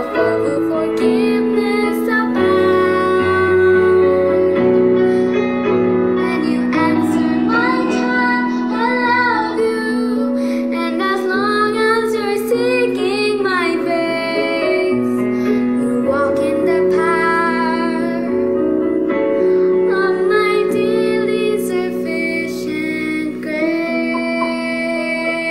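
A young girl singing a slow song over piano accompaniment, with a wavering held note about halfway through.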